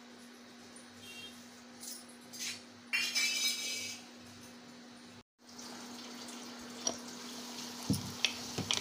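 Steel kitchen dishes and utensils being handled, clinking and ringing, with one louder clatter about three seconds in. After a break, a curry sizzles with a steady hiss as it cooks in the pan, with a few small knocks near the end.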